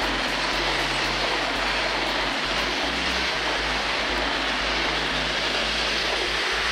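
Freight train of flat wagons rolling past: a steady noise of wheels on the rails, with the hiss of car tyres on a wet road alongside.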